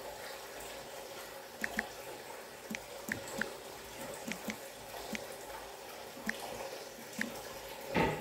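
Light taps on a smartphone's on-screen keyboard while a word is typed: about ten short, sharp clicks at an uneven pace over a faint steady hum. A louder brief noise comes near the end.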